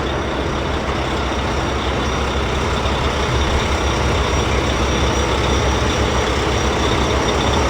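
Steady engine-like running noise, like a truck engine: an even hiss over a low hum.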